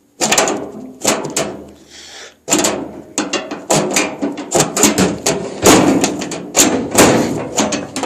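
A metal storage cubby being worked loose and lifted out of a Craftsman steel tool cabinet: a few knocks, then a rapid run of clattering metal knocks and bangs from about two and a half seconds in.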